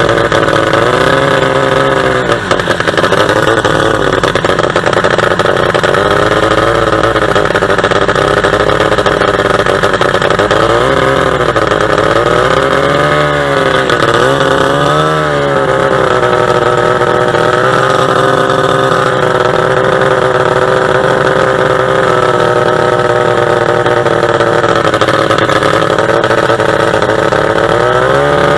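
45 hp two-stroke boat engine running hard at speed, a loud steady drone whose pitch dips and climbs again several times, most of all around the middle and again at the very end.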